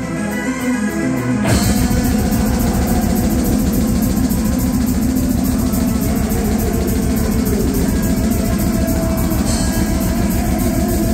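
Live metal band with distorted electric guitars and drum kit. A thinner guitar passage gives way, about a second and a half in, to the full band with rapid, even kick-drum hits.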